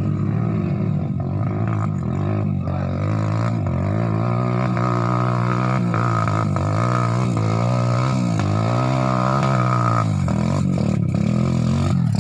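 Dirt bike engine revving up and down over and over as it labours up a steep rocky trail slope.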